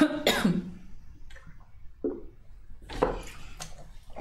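A woman clears her throat with a short voiced sound falling in pitch, her voice hoarse from a frog in her throat. A few faint clicks and shuffling sounds follow as she moves about.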